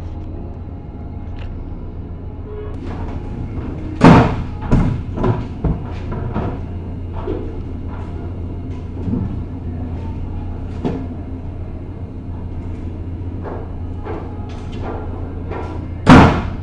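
Bangs and knocks on a ferry's steel loading ramp as porters and passengers carry cargo across it: a heavy bang about four seconds in followed by a few quicker knocks, and another heavy bang near the end, over a steady low hum.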